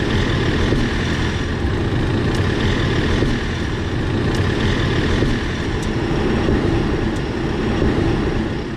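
Steady road and running noise of a BMW G20 3 Series on the move, with a few faint knocks every second or two. The knocks are the tie rod knocking that the car is shown for, a sign of worn tie rods.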